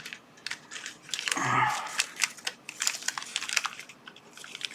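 Packaging crinkling by hand, with many small sharp clicks and taps, as a pack of small knife blades is unwrapped and handled.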